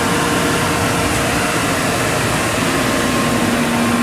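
Steady whir and hum of the powered-up Mollart Omnisprint LD2-750 gun drilling machine, its top-mounted blower running, with a few faint steady tones over it. A lower steady hum comes in near the end.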